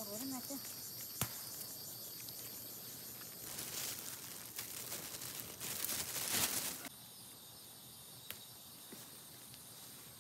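Insects chirring steadily at a high pitch, with leaves and vines rustling loudly from about three and a half to seven seconds in as they are pushed through, and one sharp click about a second in.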